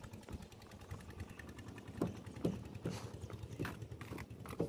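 A low, steady background rumble, with a series of sharp, irregular knocks, about two a second, in the second half.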